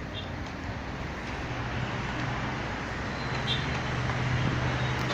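Road traffic: a steady rush of noise with a low engine hum that comes in about a second and a half in and grows slowly louder as a vehicle draws near.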